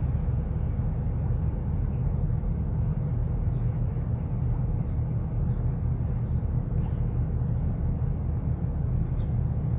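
Steady low rumble of wind buffeting the microphone, with a few faint high chirps.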